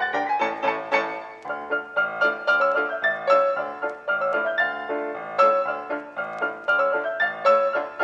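Background piano music: a quick, continuous run of struck notes.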